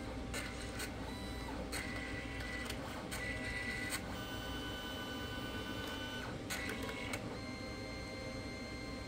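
HPRT thermal-transfer photo printer feeding the paper between its yellow and magenta colour passes. Its motor whirs and clicks, settles into a steady whine about four seconds in, and stops after about seven seconds, once the paper has been pulled back inside.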